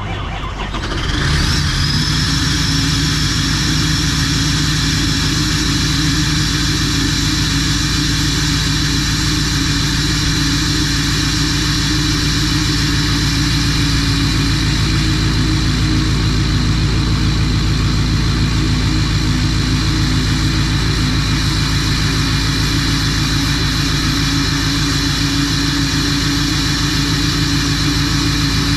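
Duramax V8 turbo-diesel in a GMC Denali pickup catching on a cold start about a second in, with a rising whine, then running at a steady idle.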